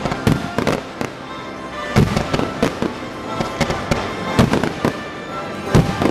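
Fireworks display: a quick string of sharp bangs and crackles, loudest about two seconds in and again near the end, with show music playing underneath.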